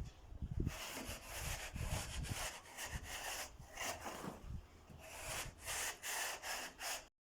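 Repeated uneven scraping and rubbing strokes of a hand tool working a rough surface, a few strokes a second, with some dull knocks.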